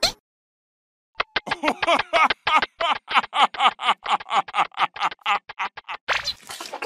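A cartoon character voice: after a short silence, a rapid string of short, high, sped-up syllables, about four or five a second, with wavering pitch.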